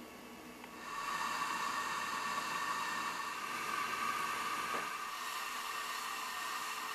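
Steady hiss from a Weeden 14 toy steam engine heating up over its lit denatured-alcohol burner. It starts about a second in and carries a faint whistling tone.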